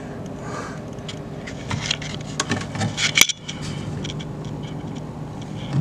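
Steady low electrical hum from the fluorescent fitting's ballast, with a handful of clicks and scrapes in the middle and one sharp click a little after three seconds in.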